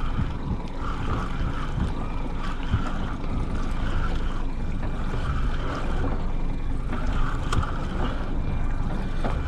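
Wind buffeting the microphone and sea water slapping against a small boat, with a spinning reel being cranked steadily to retrieve a hooked calico bass.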